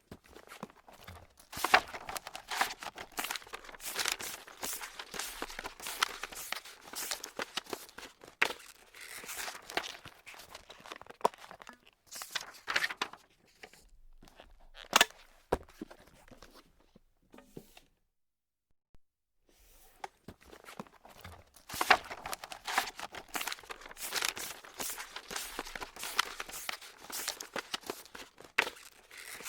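Paper being crumpled and crinkled by hand close to the microphone, a dense run of crackles and rustles, broken by a pause of a second or two past the middle before the crumpling starts again.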